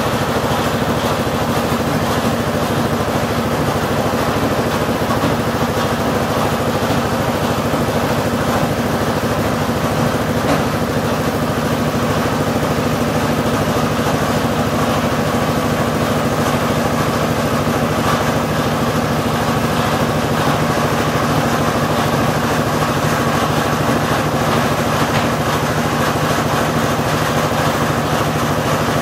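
Steady running of a well-drilling rig's small 6.5 hp petrol engine, turning the drill, with no change in speed or load.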